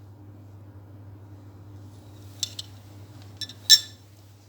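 A metal spoon clinking against a dish three times in the second half, the last clink the loudest, while lemon syrup is spooned over a cake. A steady low hum runs underneath.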